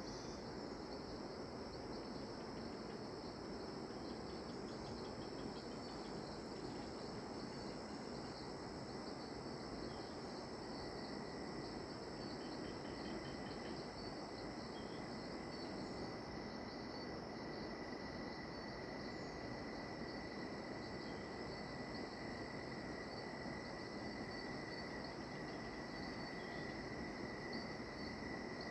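Rainforest insect chorus at dusk: several insects trilling steadily at different pitches over an even background hiss. About halfway through a lower steady trill grows stronger while the highest one stops, and a few short runs of chirps come through now and then.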